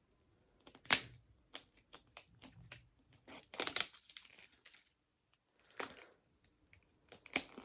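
Paper wrapping being peeled and torn off a small toy capsule by hand: scattered crinkles, rustles and sharp little clicks, busiest about three and a half seconds in.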